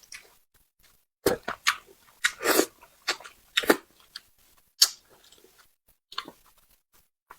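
A person eating spicy braised carp: wet chewing, biting and lip smacks in irregular short bursts, with one longer slurping smear about two and a half seconds in.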